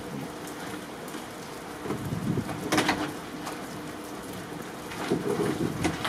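Steady hiss of rain with a low rumble and a sharp knock about two and a half seconds in, and again about five seconds in.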